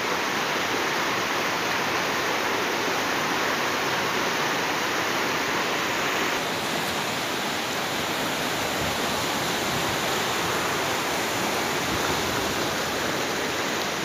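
Fast-flowing river rushing through rapids: a steady wash of turbulent water, its tone shifting slightly about six seconds in.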